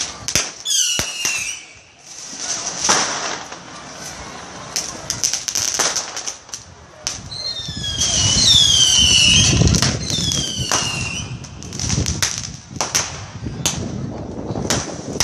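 Small fireworks going off: a run of sharp firecracker cracks and bangs with a steady high hiss, and whistling fireworks that glide down in pitch, one about a second in and several more in the middle.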